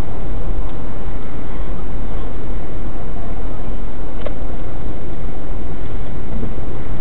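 Steady road and engine noise of a car cruising at expressway speed, heard inside the cabin through a dashcam's microphone, with a faint click about four seconds in.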